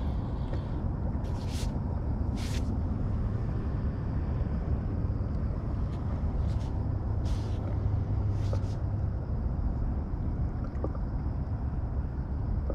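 Wind buffeting the microphone: a steady low rumble with a few short hissing bursts.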